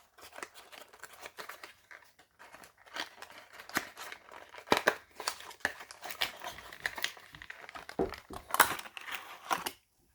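Plastic packaging crinkling and clicking as a diecast toy car is worked out of its package and display box, in irregular crackles with louder snaps about five and eight and a half seconds in.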